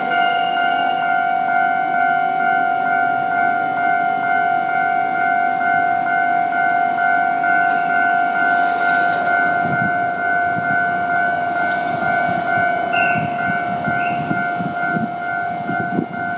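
Electronic railway level-crossing warning bell ringing steadily, a two-pitch tone pulsing evenly. A low rumble with clatter joins in about ten seconds in.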